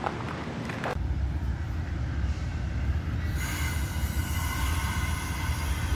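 Amtrak Superliner bilevel passenger cars rolling past with a steady low rumble from about a second in, joined a few seconds in by a high, steady wheel squeal.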